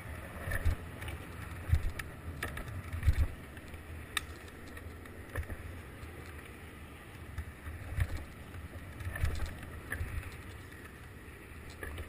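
Skateboard wheels rolling over rough, cracked asphalt, a steady low rumble, with wind buffeting the microphone in irregular low thumps and a few sharp clicks along the way.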